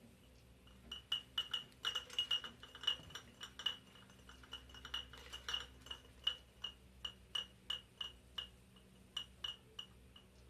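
A run of high clinks, each ringing at the same pitch, struck irregularly two to four times a second. It starts about a second in and stops shortly before the end.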